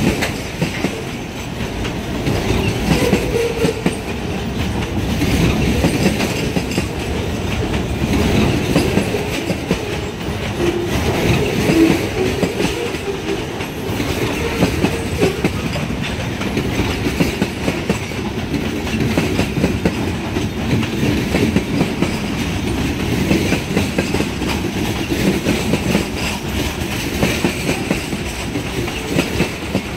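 New England Central Railroad freight cars rolling past close by, steel wheels clicking and rumbling over the rail joints in a steady, loud run.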